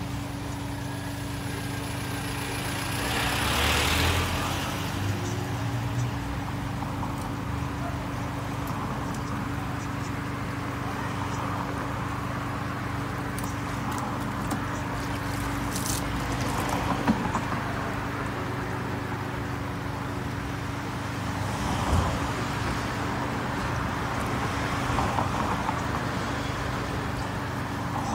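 Steady low mechanical hum under constant background noise, with a few scattered knocks and clicks.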